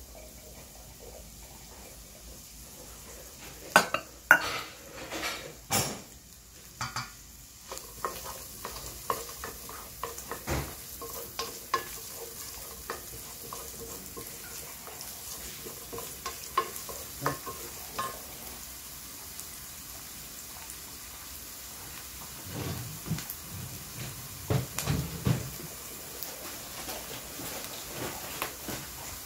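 Chopped onion sizzling in hot olive oil in a frying pan, stirred with a wooden spoon that clicks and scrapes against the pan. A few loud, sharp knocks come about four to six seconds in.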